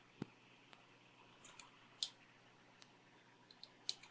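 A few faint, scattered clicks and taps from a desoldering iron and a circuit board being handled, in an otherwise near-silent workshop.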